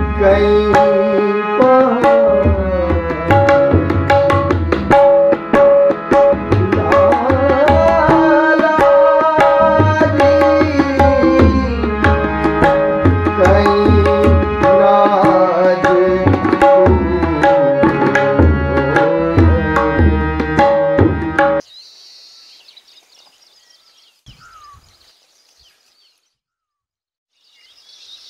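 Indian film music: a tabla rhythm under a sustained, gliding melody. It cuts off sharply about 22 seconds in, leaving a faint outdoor background with scattered high chirping.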